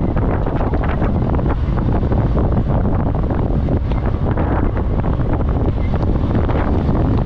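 Loud, steady wind buffeting the microphone while riding at speed, heaviest in the low end, with no clear engine note showing through.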